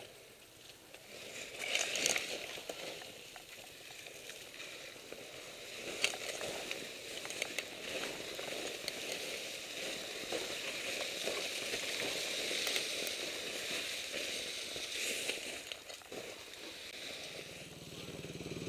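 Crunching and rustling close to a helmet-mounted camera as a rider moves about in snow beside a fallen trials motorcycle, with a sharp knock about six seconds in.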